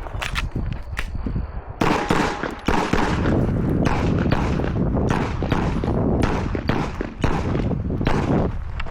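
Glock 34 9mm pistol fired in fast strings of shots, several a second, with short gaps between strings. A steady high beep sounds through the first second.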